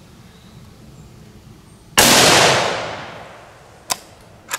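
A scoped bolt-action .30-06 rifle fires a single handloaded round: one sharp shot about two seconds in, its echo dying away over a second and a half. Near the end the bolt is worked with a couple of short metallic clicks.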